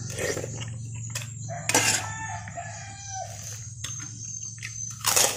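Close-up eating sounds: chewing a spoonful of clear vegetable soup with boiled egg, with two louder wet mouth noises, one about two seconds in and one near the end. A rooster crows in the background for about a second and a half, starting about two seconds in, over a steady low hum.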